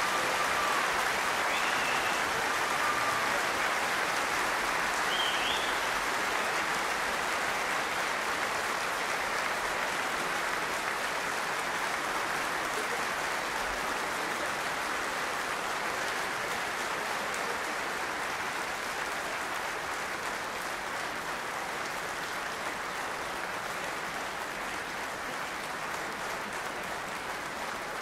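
Concert audience applauding steadily, slowly fading.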